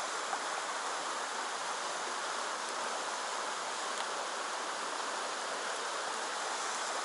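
Mountain stream running over a rocky riffle: a steady rush of water.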